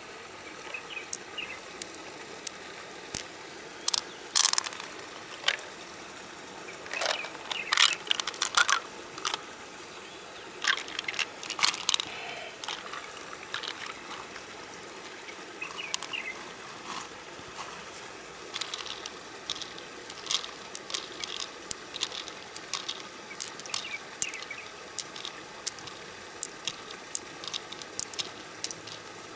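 Freshwater mussel shells being handled: irregular sharp clicks and scrapes of hard shell, bunched in a few busy spells, over a steady outdoor hiss.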